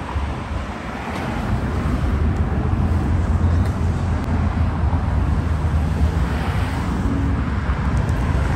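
Vehicle and road noise: a low engine-and-tyre rumble that grows louder about a second in and then holds steady.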